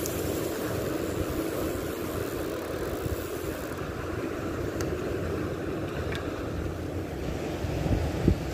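Wind buffeting the phone's microphone over the wash of small waves breaking on a shallow reef, with a single thump near the end.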